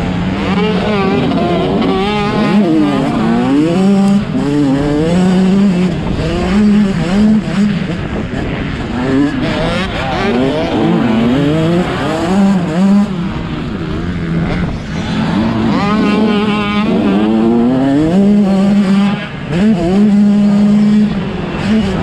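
Several 125cc two-stroke motocross bikes racing together, their engines revving up and falling back again and again as riders work the throttle and gears.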